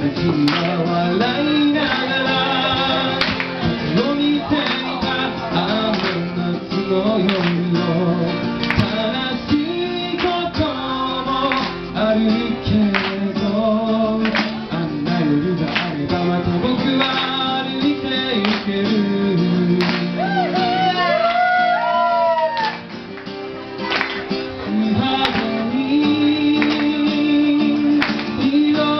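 A man singing a song live to his own strummed acoustic guitar, with a short quieter passage about two-thirds of the way through.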